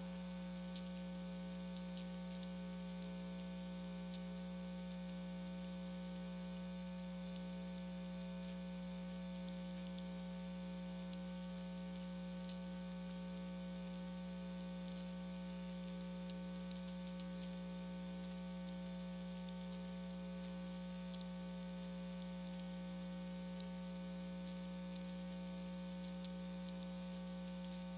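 Steady electrical mains hum in the recording chain: a strong low buzzing tone with a ladder of higher tones, unchanging throughout, with a few faint ticks.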